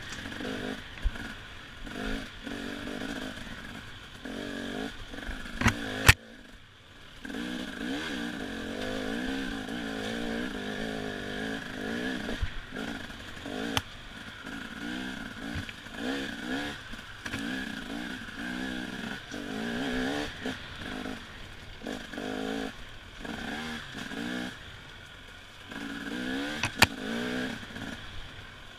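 Enduro dirt bike engine revving up and down as the rider rolls on and off the throttle over a trail, with clattering and scraping. There is a sharp crack about six seconds in and another near the end.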